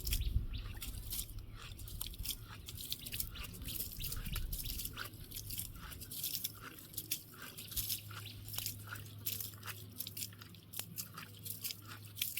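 Close crunching and chewing of people eating: many short, crisp crunches at irregular intervals.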